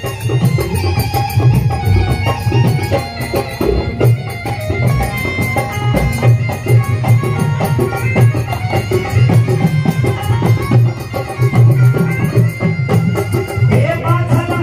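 Instrumental passage of live folk bhajan music with a busy, steady hand-drum rhythm under a melody; a fuller melodic line comes in near the end.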